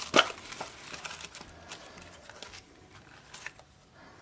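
Tissue paper rustling and crinkling as a tight-fitting coin presentation box is worked out of its paper wrapping, with a sharp crackle just after the start. The rustling thins out after about two and a half seconds.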